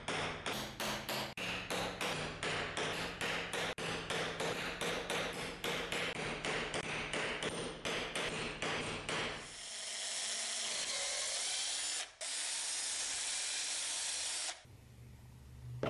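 A hammer taps a steel punch through leather, about three even strikes a second, punching the stitching holes. After about nine seconds this gives way to a cordless drill running steadily for about five seconds as it drills stitching holes through the leather.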